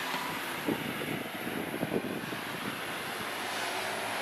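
Steady rushing background noise, with a few soft knocks or bumps about a second to two seconds in.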